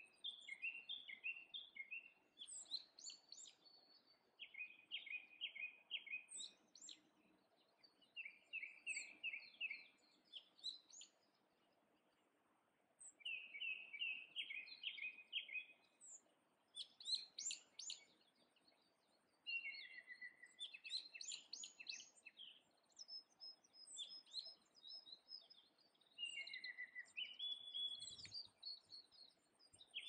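Japanese thrush singing: about ten clear phrases, each a quick run of repeated whistled notes lasting one to three seconds, separated by short pauses.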